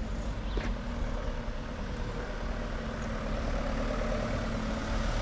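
Motor vehicle engine idling, a steady low hum, with one brief click about half a second in.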